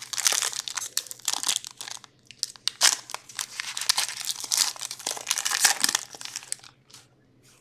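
Crinkling of a hockey card pack's wrapper as it is torn open and handled, an irregular crackle that stops near the end.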